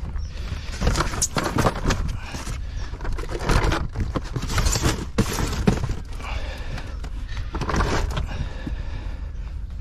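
Polystyrene box and boat seat board being handled inside an inflatable boat: irregular scrapes and knocks in clusters over a steady low rumble.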